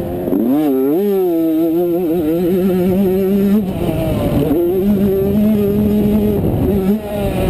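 85cc two-stroke motocross bike engine running hard under the rider, heard from the helmet. Its pitch climbs in the first second and holds steady, then drops briefly about three and a half seconds in and again near the end before picking back up.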